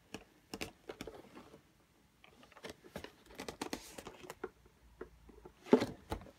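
Light taps, scrapes and crinkles of fingers handling a cardboard toy box as it is turned over, with a louder crackle near the end.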